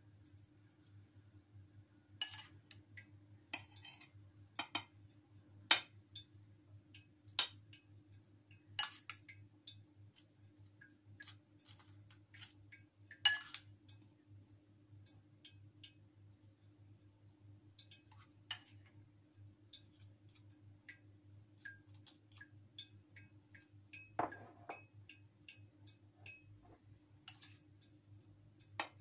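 A spoon clinking and scraping against a ceramic bowl and a steel pan as crushed tomato is spooned out: scattered, irregular sharp taps, a few louder than the rest, over a steady low hum.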